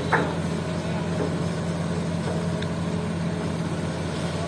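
Diesel engine of a Hitachi hydraulic excavator running steadily while it loads a dump truck, with one brief sharp knock just after the start.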